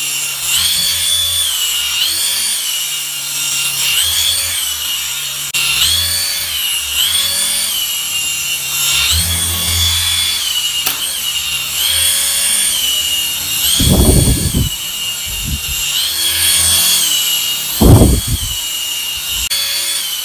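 Doraemon flying toy, a small rechargeable helicopter with two stacked rotors, buzzing in flight. Its high motor whine rises and falls every couple of seconds as it climbs and dips. Dull low thumps come about two-thirds of the way in and again near the end, the second the loudest.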